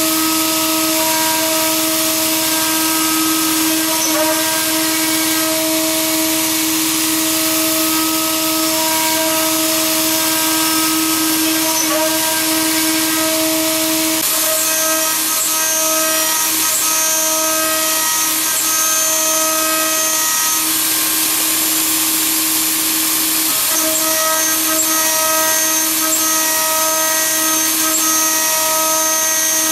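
Small 3-axis CNC milling machine running, with its spindle motor giving a steady whine and hiss as it cuts. Higher motor tones cut in and out every few seconds as the axes move.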